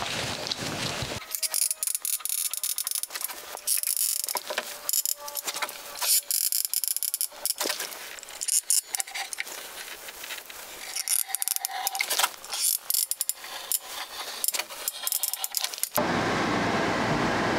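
Blue painter's tape pulled off the roll for about a second. Then comes a run of scattered clicks, knocks and scrapes as tools and a wooden stair tread are handled. A steady rushing noise starts near the end.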